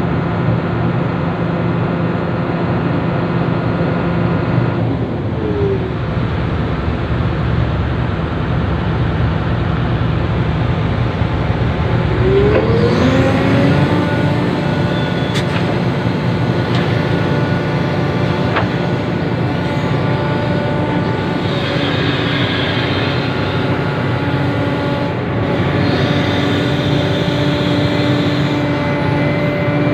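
Sumitomo SH350 hydraulic excavator's diesel engine running steadily under working load. Its pitch dips around five seconds in and climbs again about twelve seconds in, and a couple of sharp knocks come midway.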